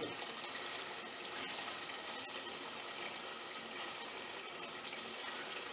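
Chicken masala simmering in oil in an open aluminium pressure cooker: a steady bubbling sizzle.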